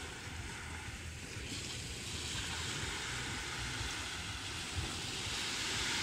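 Small sea waves breaking and washing up onto a pebble beach, swelling louder in the second half, with wind rumbling on the microphone.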